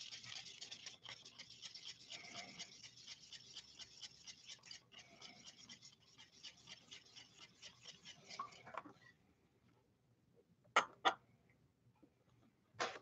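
Faint, rapid scratching of a thin stick stirring thinned white glue and water in a small plastic cup, scraping the cup's sides; the stirring stops about nine seconds in. A couple of light clicks follow near the end.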